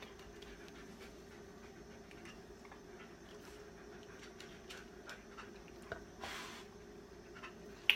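Faint scattered light ticks over a low steady background hum, with a short soft rustle about two-thirds through. Near the end comes a single sharp click from a dog-training clicker, marking the dog's touch on the target.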